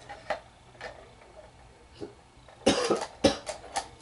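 A man coughs once, loudly, about two-thirds of the way in, among a few light clicks and taps from a Lionel train car being handled and set onto the track.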